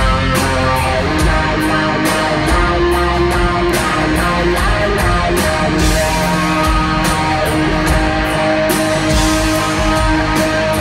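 Live rock band playing loud: a distorted electric guitar riff over drums, with regular sharp cymbal hits.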